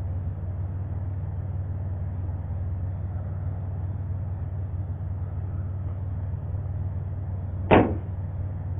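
Sky Viper S1700 quadcopter running steadily: a low hum with a rushing noise. There is one short, sharp knock near the end.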